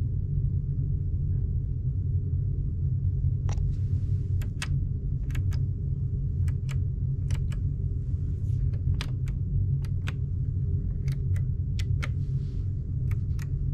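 Push-button light switches on a ship cabin's bedside control panel clicking as they are pressed and released, in close pairs, starting a few seconds in. Under them runs a steady low rumble of the ship's machinery.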